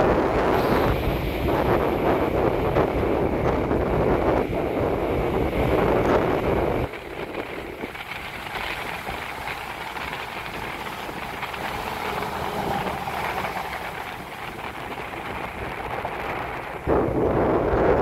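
Rough typhoon surf breaking and washing over a rocky, pebbly shore, with wind buffeting the microphone. The low rumble drops out suddenly about seven seconds in and comes back near the end.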